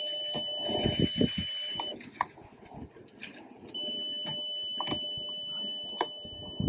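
VW Golf MKIV's lights-on warning tone sounding with the parking lights switched on: a steady high electronic beep for about two seconds, a pause, then the tone again from about four seconds in. Sharp clicks and knocks of the light switch and trim being handled sound under it.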